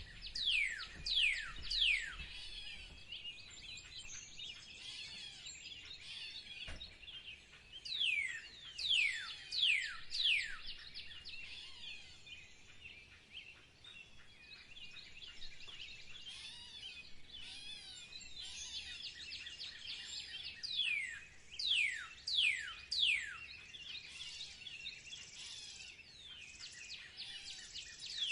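Songbirds singing: steady high twittering and chirping, broken by clusters of three or four loud, quick downward-sweeping whistles that recur several times.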